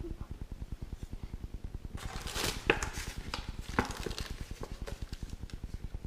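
Product packaging and parts being handled: a burst of rustling about two seconds in, then a few sharp clicks and taps, over a steady low pulsing hum.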